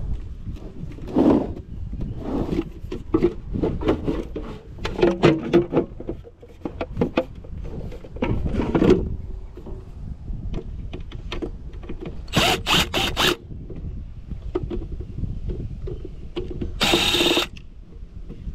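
Power drill-driver running in short bursts while a pool pump is taken apart, between clanks and rattles of handling the metal parts. There are four quick bursts about twelve seconds in and a longer run near the end.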